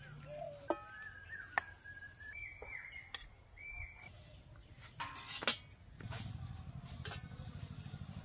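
Birds chirping and whistling, with a few sharp clicks. About six seconds in, a small engine's low, fast, even puttering sets in.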